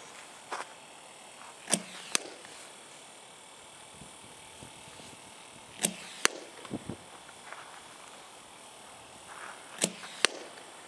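A softball bat hitting pitched balls three times, about four seconds apart; each hit sounds as a pair of sharp cracks less than half a second apart.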